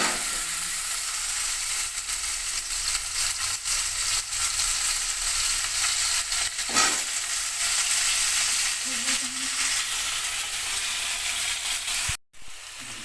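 Potato pieces frying in hot mustard oil in a kadai: a loud steady sizzle with stirring. It starts abruptly as they go in and cuts out briefly near the end.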